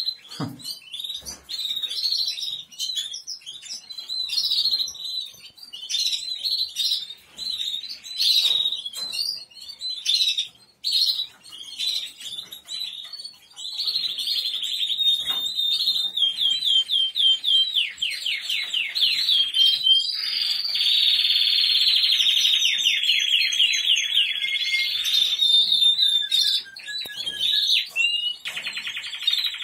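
Caged songbirds: scattered short chirps, then from about halfway a loud, continuous song of rapid rolling trills that step up and down in pitch.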